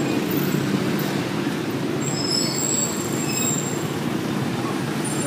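Steady street traffic: the running of motorcycles and other vehicles on the road, with a few thin, high squealing tones around the middle.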